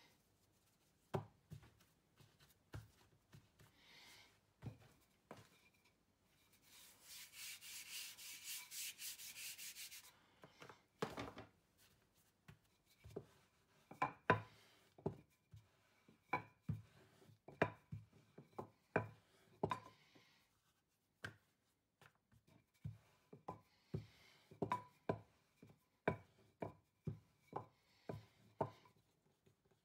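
Hands pressing and patting a ball of naan dough flat on a floured worktop, with a few seconds of quick, even rustling. Then a wooden rolling pin rolls the dough out, knocking and clicking against the counter about once a second.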